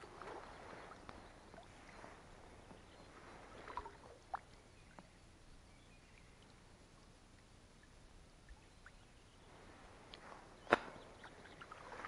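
Oars dipping and pulling through water in slow, soft strokes: a few strokes, a pause of several seconds, then more strokes with one sharp knock near the end.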